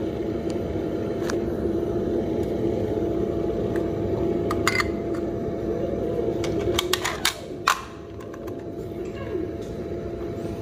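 Steady background hum with a faint held tone, dropping quieter about seven seconds in. Over it, a few light metal clicks and then a cluster of sharper clacks as the stainless steel Cafelat Robot portafilter is handled and set down on the scale, the loudest clack near the end of that cluster.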